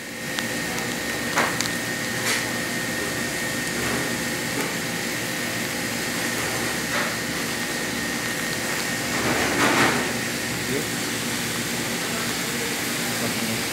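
Steady rushing kitchen noise with a low hum under it. A few light clicks come in the first seconds, and a brief louder clatter comes about ten seconds in.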